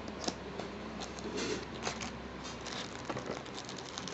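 Light handling noises: scattered small clicks and a few short rustles as a wristwatch and its packaging are handled.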